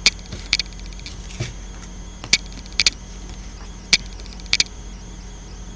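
Oracle cards clicking and tapping as a card is lifted, turned over and set back on the deck: a handful of sharp clicks, some in quick pairs, over a faint steady hum.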